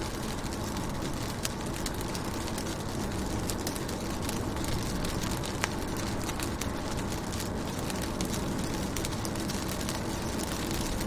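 Rain falling on a car, many light, irregular drop taps on the window glass over a steady low rumble.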